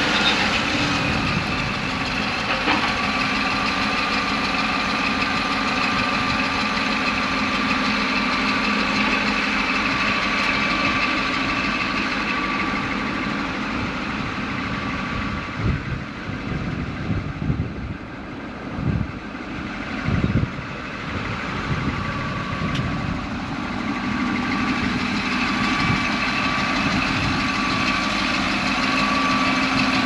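Caterpillar D11N bulldozer's big diesel engine running steadily under a high whine that falls in pitch in the first couple of seconds and then holds. The sound eases off about halfway, with a couple of dull thumps, then builds again.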